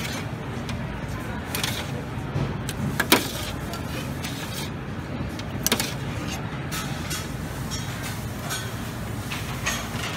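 Metal serving spoon clinking and scraping against a stainless steam-table pan as sauce is scooped, a few sharp clinks with the loudest about three seconds in and another near six seconds, over a steady low hum.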